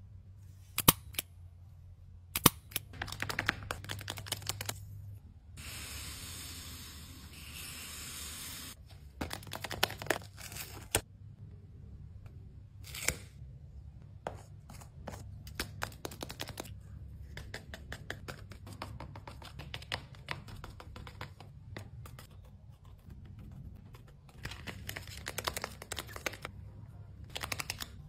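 Hands handling glossy, tape-covered paper cutouts: crisp crackles, rustles and sharp clicks as pieces are picked up, pressed and stuck onto a paper doll. About six seconds in there is a steady scratchy rustle lasting about three seconds, and a low hum runs underneath.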